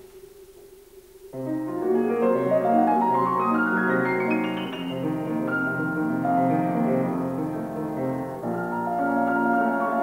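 Grand piano played solo. It comes in about a second in with low sustained notes and a run that climbs steadily higher over about three seconds, then goes on in chords.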